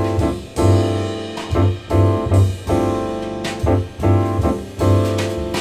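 Jazz recording playing through bookshelf speakers driven by a KT66 single-ended tube amplifier, picked up by a microphone in the room. This is the instrumental intro before the vocal: repeated piano chords over a bass line.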